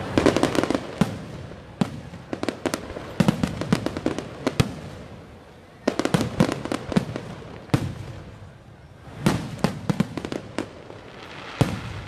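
Fireworks going off in rapid clusters of sharp bangs and crackling, with short lulls between the volleys.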